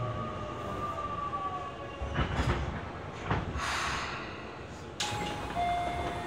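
Tobu 20070-series subway car standing at a station with its doors open: a steady low rumble, a few short knocks, a brief hiss about three and a half seconds in, and several steady tones that start suddenly about five seconds in.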